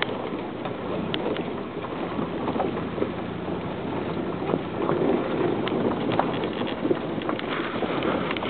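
Vehicle driving slowly down a rough dirt track: steady engine and road noise with frequent small knocks and rattles as it bumps over the ruts.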